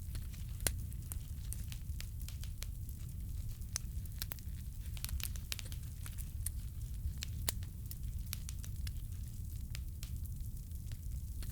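Fireplace fire crackling, with scattered sharp pops at irregular intervals over a steady low roar.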